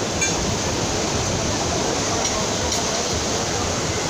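Sea surf: rough waves breaking and washing in over the shallows, a steady rushing.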